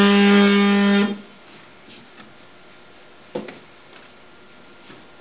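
ShopBot Desktop CNC router giving a steady, even-pitched hum with overtones for about a second, then stopping abruptly. Later comes a single faint click.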